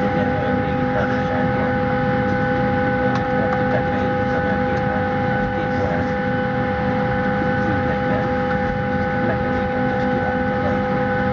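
Steady airliner cabin noise on the ground: a constant hum with several unchanging whining tones from the Ryanair Boeing 737's systems, and passengers talking faintly underneath.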